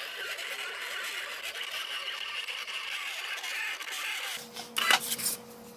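Desktop vinyl-cutting plotter running: a steady whirr, then about four seconds in its motors start driving the carriage with a low buzzing tone and a few sharp clicks.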